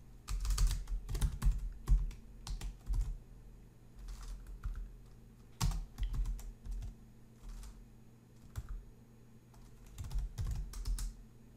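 Typing on a computer keyboard: irregular bursts of keystroke clicks, the busiest in the first three seconds, again around six seconds in and near the end. A faint steady low hum sits underneath.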